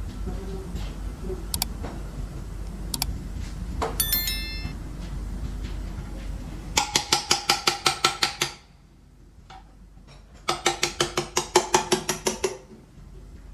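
Metal tools and engine parts being worked: a few light clicks, then a sharp metallic clink that rings briefly. After that come two bursts of rapid, regular metallic clatter, each about two seconds long, with a short gap between them.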